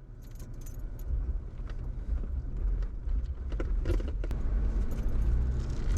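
Vehicle driving: a low rumble of engine and road noise that builds steadily louder, with light rattles and clicks scattered through it.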